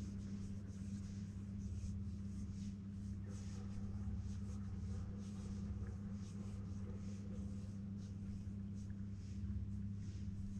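A boat motor running steadily at trolling speed: a low, even hum that does not change.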